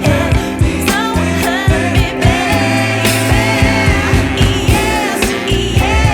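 A song with a singing voice over a drum beat and bass, played back through a Tensai amplifier for a sound test. The singer holds one long note midway.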